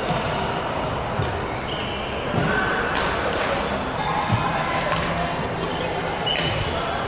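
Badminton rally in a large echoing hall: sharp cracks of rackets striking the shuttlecock, several of them one and a half to two seconds apart, with short squeaks of shoes on the wooden court floor.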